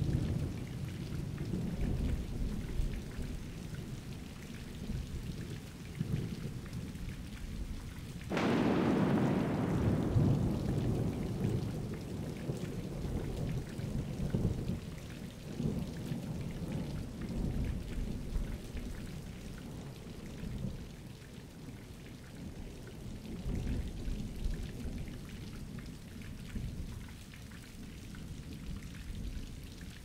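Thunderstorm: rain falling steadily under low, rolling thunder. About eight seconds in comes a sudden loud thunderclap, which rumbles away over several seconds.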